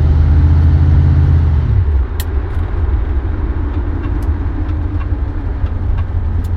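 Dodge 318 V8 running in a 1973 Dodge Dart; about two seconds in the engine note drops and gets quieter, then runs on steadily with a few light clicks.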